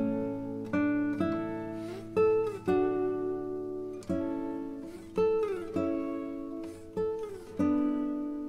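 Background music: guitar chords struck about once a second, each left to ring and fade, with an occasional sliding note.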